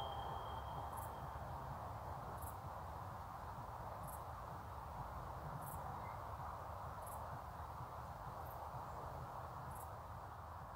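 Quiet outdoor ambience: a steady low rumble and hiss, with a faint, very high chirp repeating about every one and a half seconds. The last tone of the synthesized music dies away in the first second or so.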